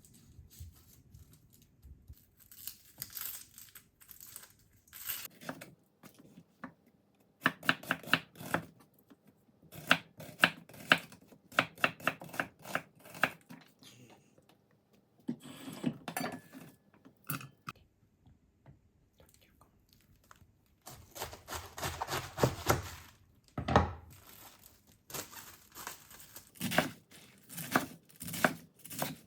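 Household handling sounds: irregular clicks and knocks mixed with short bursts of rustling, scraping or tearing, busiest about eight to fourteen seconds in and again near the end.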